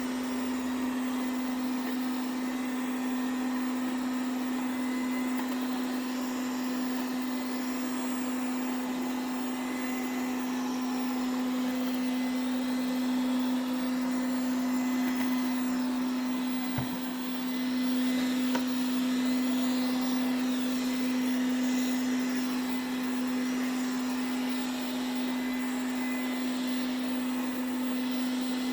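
Ziglint robot vacuum cleaner running, a steady hum of its suction motor with a single faint click about two-thirds of the way through.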